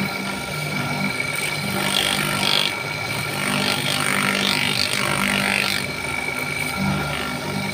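Electric polishing motor running with a steady whine and hum, its spindle sanding the inside of a monel ring. Scratchy rasping of the abrasive on the metal comes in briefly about two seconds in and again from about three and a half to six seconds.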